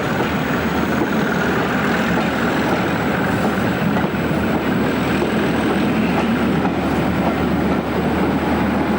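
A train hauled by a Class 37 diesel locomotive running steadily past: engine and rolling noise of the locomotive and its coaches.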